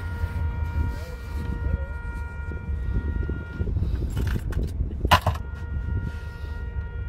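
Road rumble inside a moving vehicle's cabin, with a steady high whine of several notes that drops out for a couple of seconds. One sharp crack about five seconds in is the loudest sound.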